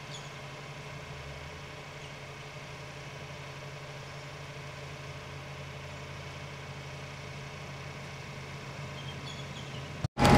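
A vehicle engine idling steadily. Near the end it cuts out for a moment and a much louder engine comes in.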